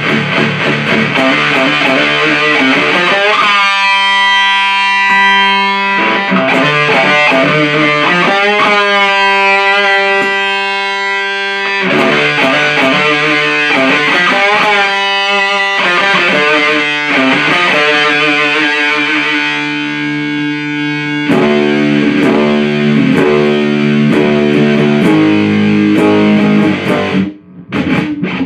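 Electric guitar played through a Supercoolpedals 77 Fuzz Blender, a Big Muff-style fuzz pedal, with its flavor switch in the up position, into an Orange Super Crush 100 amp. Heavily distorted riffing with several held, ringing chords, then heavier, lower chugging riffs from about two-thirds of the way through, broken by a brief stop near the end.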